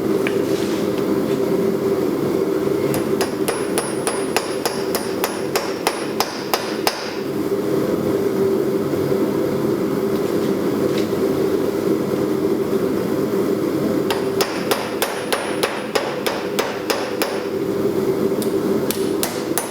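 Hand hammer striking hot steel on an anvil, opening out a punched hole: two runs of quick ringing blows, about three seconds in and again about fourteen seconds in, with more starting near the end. A steady hum runs underneath.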